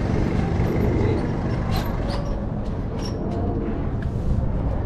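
Go-kart engines idling together in a steady low rumble, with a few light clicks over it.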